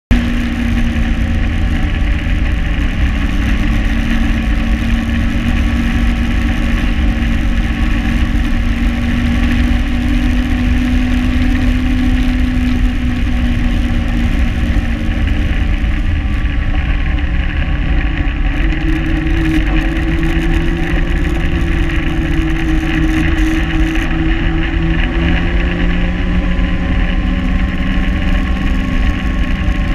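Ski-Doo Renegade XRS snowmobile engine running steadily while the sled rides along a trail, over a constant low rumble. The engine's drone rises somewhat in pitch a little past halfway through.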